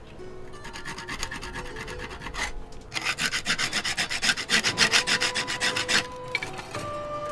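Quick back-and-forth strokes of a hand file scraping, light for the first few seconds, then harder and louder from about three seconds in until about six seconds in.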